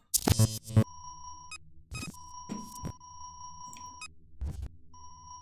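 Sci-fi computer-terminal sound effects: a short glitchy burst, then a steady electronic sine-like tone held for a second or two at a time and broken by a few sharp clicks, and a run of quick beeps near the end.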